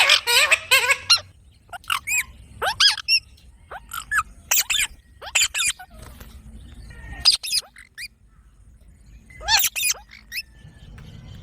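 A pet parrot calling: short, shrill chirps and squawks that bend up and down in pitch. They come in a quick run at first, then singly or in pairs with gaps between them.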